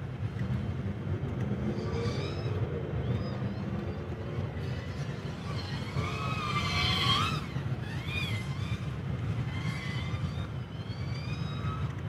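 The brushless motors of a 3-inch FPV quadcopter whine, rising and falling in pitch as the throttle changes, loudest in a sweep around the middle. A steady low rumble runs underneath.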